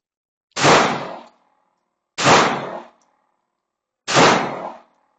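Three airsoft shots striking a steel target, each a sharp metallic clang with a short ring, about every 1.7 seconds.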